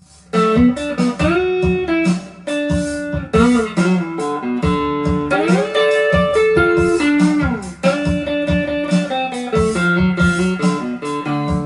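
Electric guitar played with a pick through an amp: a bluesy lead line whose notes bend and slide up and down in pitch. It is a slide-guitar part played in standard tuning without a slide.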